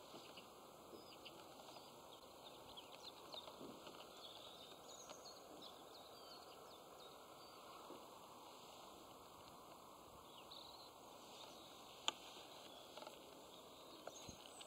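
Near silence: faint outdoor ambience with small birds chirping now and then, and one sharp click about twelve seconds in.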